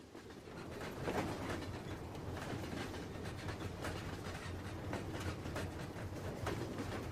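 Train rolling along the track: a steady rumble with many sharp, irregular clicks and knocks of wheels on the rails. It fades in over the first second.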